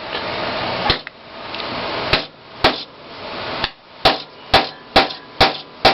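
Hammer blows driving the central shaft into a wooden sanding drum: about nine sharp strikes, coming faster in the second half.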